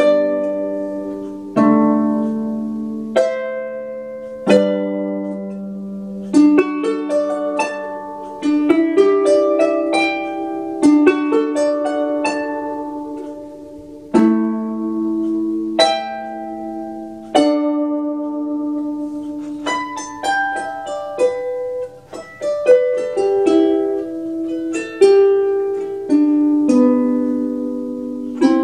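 Solo lever harp playing a slow tune: plucked notes and chords that ring on and overlap as they fade, a new group struck every second or two.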